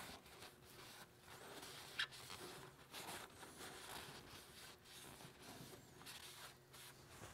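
Faint rubbing and scuffing of a paper shop towel wiping the top of an engine block, with one sharp click about two seconds in.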